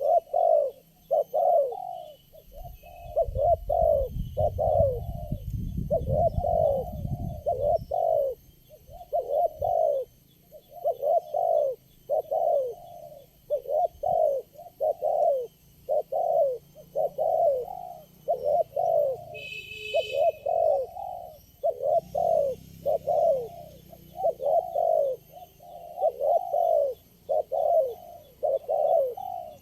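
Spotted dove (tekukur) cooing over and over, short coos a little over one a second with no break.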